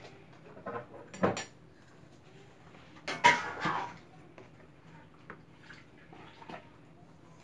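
Kitchen utensils knocking and clattering on a table as dough is worked by hand. There are two loud clattering knocks, about one and three seconds in, with lighter taps between them.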